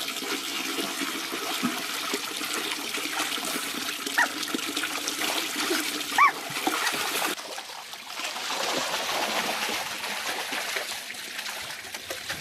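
Water running and splashing, with two short high-pitched animal yelps about four and six seconds in.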